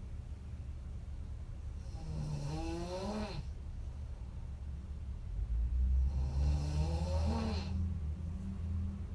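A woman snoring heavily: two pitched snores about four seconds apart, each rising in pitch over about a second and a half. A steady low rumble runs underneath and grows louder about halfway through.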